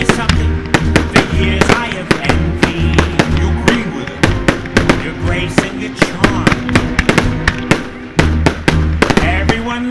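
Fireworks going off in quick, irregular sharp bangs and cracks over a loud music soundtrack.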